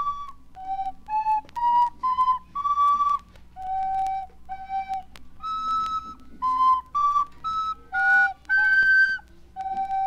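A flute-like wind instrument playing a simple, halting tune of short separate notes that step up and down in pitch, a few of them held a little longer.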